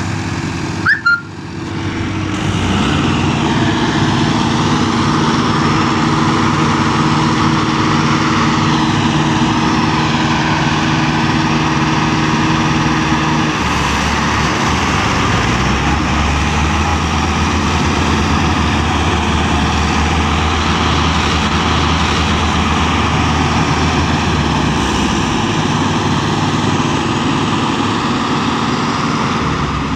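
Diesel tractor engines, a Mahindra 585 in the lead, running hard under load as they tow a Sonalika tractor stuck in deep mud. There is a brief break about a second in, and the engine note changes about halfway through as a deeper tone comes up.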